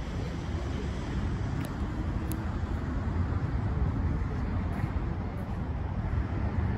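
Steady low rumble of outdoor background noise, with two faint ticks about two seconds in.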